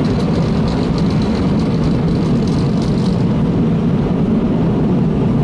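MacNeil car wash tunnel's air dryers blowing steadily and loudly on the vehicle, an unbroken rush of air.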